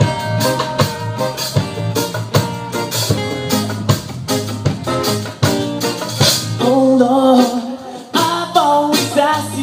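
Live reggae band playing through a PA: guitars, drum kit and bongos keep a steady beat, and a man's singing voice comes in over it in the second half.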